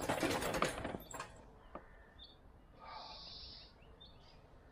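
Engine crane's castors rolling over rough tarmac under the weight of a slung lathe: a gritty rattle that stops about a second in. Then a few light clicks and a short bird chirp near the middle.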